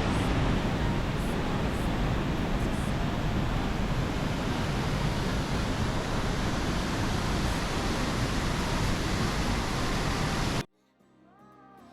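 Waterfall, a steady, even rush of falling water that cuts off suddenly near the end, where music begins faintly.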